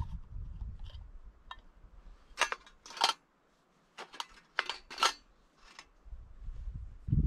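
Small dry twigs snapped by hand: a run of about eight sharp, dry snaps over a few seconds, in small clusters with short quiet gaps between them.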